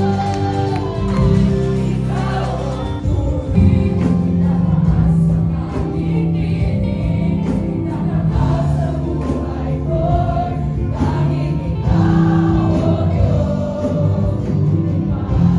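A congregation singing a Tagalog praise and worship song, led by a woman worship leader on microphone, over instrumental backing.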